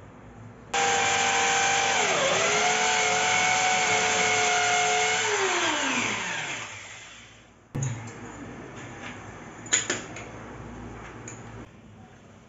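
Corded electric drill boring into ceramic wall tile: the motor starts suddenly and runs for about four seconds, its pitch dipping briefly as the bit bites. It then winds down with falling pitch as the trigger is let go. A few light clicks and knocks follow, one sharper one about ten seconds in.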